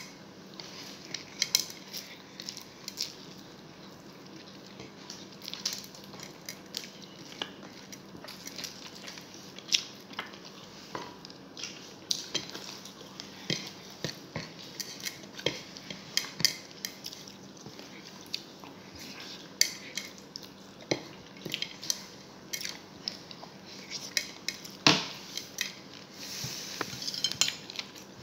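Ceramic plate clinking and scraping under the fingers as rice and chicken adobo are eaten by hand: irregular small taps and clicks, a few sharper knocks among them.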